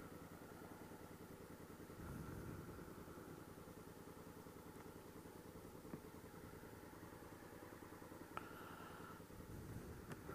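Honda Africa Twin CRF1000L's parallel-twin engine running steadily and faintly, with a slight swell about two seconds in.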